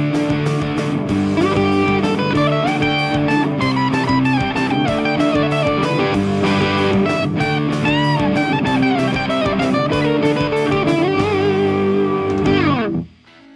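Intro theme music: an electric-guitar rock tune with bending lead lines over a steady drum beat. Near the end the guitar slides downward and the music cuts off.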